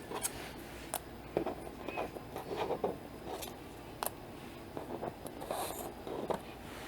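Light handling noise of card stock die cuts and a magnetic sheet: scattered small taps, clicks and soft scrapes as the pieces are moved and laid down.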